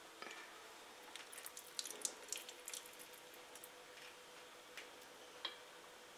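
Faint clicks and soft sticky taps of a silicone spatula and fingers prising gelatin candy cubes out of a glass dish and setting them on a plate, most of them in the first three seconds.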